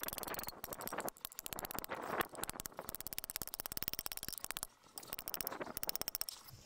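A hammer striking a steel rod laid across a steel bar, as a fast, even run of metallic taps, many a second, with a short break about three quarters of the way through. The rod is being hammered into a curve.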